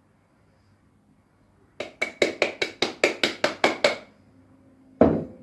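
A spoon knocking against a mixing bowl in a rapid, even run of about five strikes a second for some two seconds as stiff cookie dough is beaten by hand, then one single louder knock.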